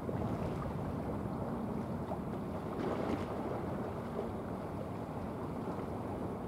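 Steady low rumble of a 107 m container ship passing close by: its engine running under way and water rushing at the bow. Briefly a little louder about three seconds in.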